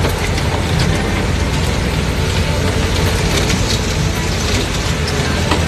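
Inside a vehicle's cabin, driving slowly over a rough dirt track: a steady low rumble of engine and road, with frequent small rattles and knocks.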